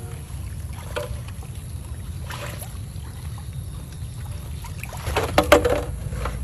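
Water splashing and trickling over a steady low rumble, with a louder burst of splashing about five seconds in.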